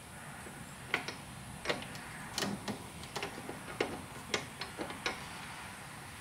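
Irregular sharp metal clicks and light knocks, about a dozen, from a ride-on mower's tie rod end being worked into the steering arm at the front wheel.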